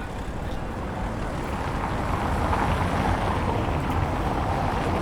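City square ambience: a steady wash of street and crowd noise with a low rumble, swelling a little about halfway through.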